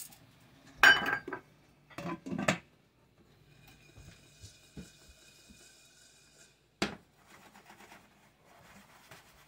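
Stainless steel pot of popcorn kernels in hot bacon grease being handled on a glass-top stove: the kernels rattle and the pot clanks as it is swirled, with knocks about a second in and again around two seconds. A faint sizzle of the grease follows, then a single sharp clink about seven seconds in as the glass lid is set on the pot.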